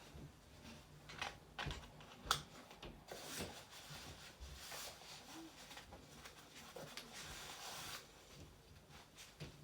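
Light handling noise: scattered small clicks and knocks with rustling of carrier fabric and straps, and a steadier rustle from about three to eight seconds in.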